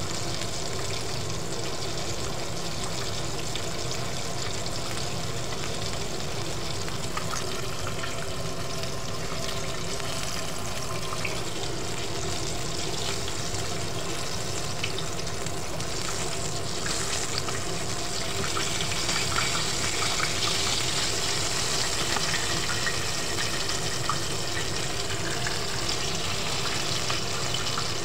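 Chicken pieces deep-frying in hot oil in a pot: a steady sizzle with crackling. The sizzle grows louder and brighter about 17 seconds in, when a fresh flour-coated raw piece goes into the oil.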